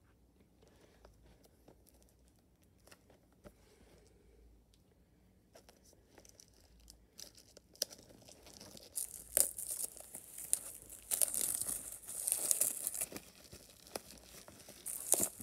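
Plastic shrink-wrap being torn and peeled off a DVD case, crinkling and tearing in several spurts over the second half; before that, only faint handling clicks.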